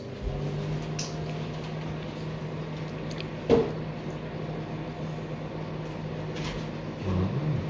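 Microwave oven starting up and running with a steady low hum while heating food, with a single sharp click about three and a half seconds in.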